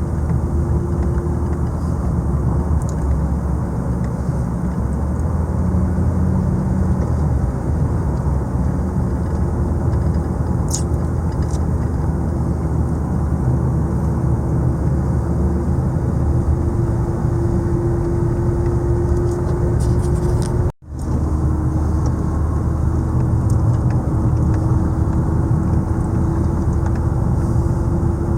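Car engine and road noise heard from inside the cabin while driving, a steady rumble with a drone that slowly rises in pitch. The sound drops out for a moment a little after twenty seconds.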